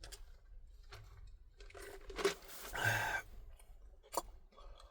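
Quiet eating sounds: chewing with a few faint clicks, and a brief louder rustle about halfway through.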